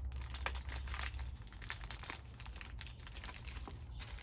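Small plastic bag crinkling and rustling as it is handled and opened, with irregular crackles.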